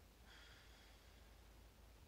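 Near silence: room tone, with one faint, brief soft rustle about a quarter of a second in.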